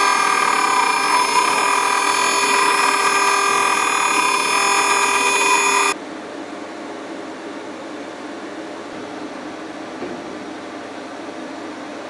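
CNC router spindle whining steadily at high speed while a small carbide end mill cuts aluminium under mist coolant, with several high tones held steady. About six seconds in this cuts off abruptly to a much quieter steady hum.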